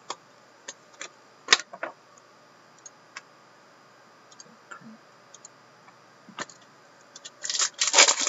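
Hockey trading cards being handled: scattered sharp clicks and taps, the loudest about one and a half seconds in. From about seven seconds in comes a dense crinkling as a card pack's foil wrapper is torn open.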